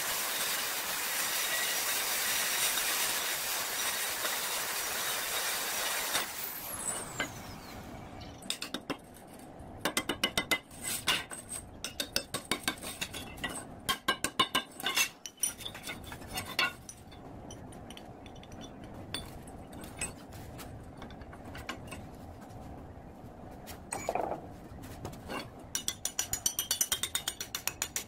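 Arc welding on a steel tube frame: a loud steady hiss for about six seconds that cuts off. It is followed by many short metallic knocks and clinks in quick runs as metal parts are tapped and handled.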